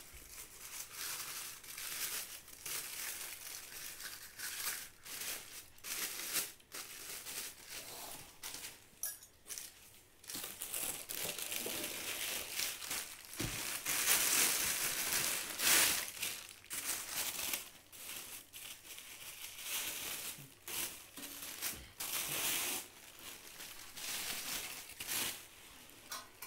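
Clear plastic packing bags and wrapping crinkling and rustling in irregular handfuls as items are pulled out of a cardboard box, loudest about halfway through.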